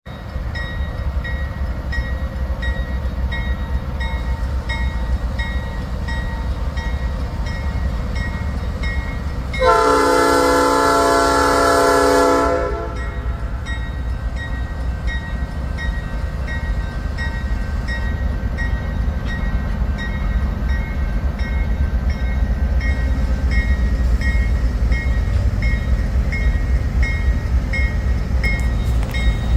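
Norfolk Southern freight train's lash-up of diesel locomotives rumbling steadily past, with one long chord blast of the air horn of about three seconds, starting about ten seconds in. A bell dings at an even pace, roughly every two-thirds of a second.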